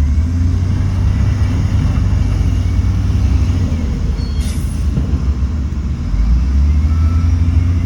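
Heavy diesel engine of earthmoving machinery running with a deep, steady rumble that grows louder about six seconds in. A short hiss comes about halfway through.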